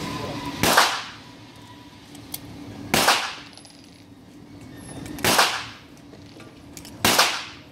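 Four single shots from a Zigana KC Sport 9mm pistol, slow aimed fire about two seconds apart, each shot followed by a short echo in the indoor range.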